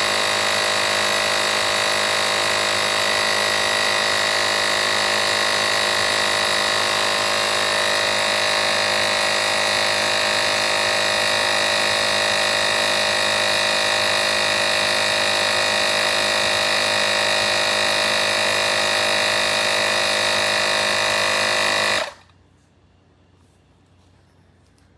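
Fanttik X8 APEX cordless tire inflator's compressor running at a steady pitch with a high motor whine, then cutting off suddenly near the end.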